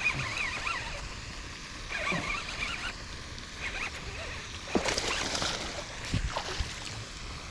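A small largemouth bass splashing and thrashing at the water's surface as it is hooked and pulled to the bank, most of it about five seconds in, with a dull thump soon after. Birds call in short wavy chirps in the first half.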